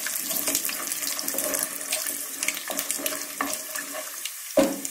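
Oil sizzling and crackling in a pot as mustard seeds, dried red chillies, peanuts and freshly added curry leaves fry, the tempering stage of a dish, while a wooden spatula stirs them. A single knock of the spatula against the pot comes near the end.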